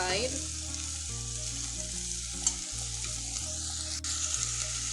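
Meat and tomato paste frying in a pot, sizzling steadily as they are stirred together, with a couple of sharp clicks from the stirring.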